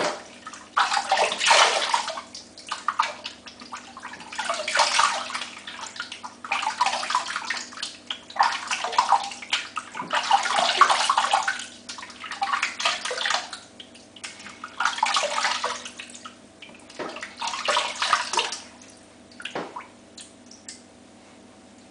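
Water splashing as hands scoop it up and rinse shaving lather off the face, in about a dozen irregular splashes.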